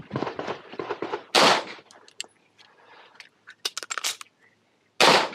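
Sig Sauer P365 pistol shots during a timed IDPA course of fire. A loud shot comes about a second and a half in and another near the end, with quicker, quieter sharp cracks in the first second and a cluster of clicks in between.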